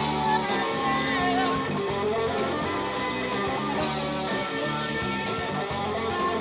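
Guitar-led rock music with strummed chords and a wavering lead line in the first second or so.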